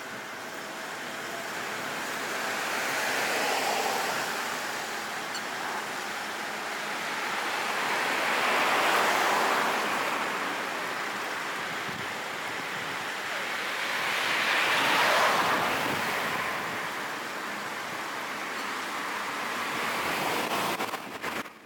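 Road traffic: cars passing one after another, their tyre and engine noise swelling and fading four times, about every six seconds.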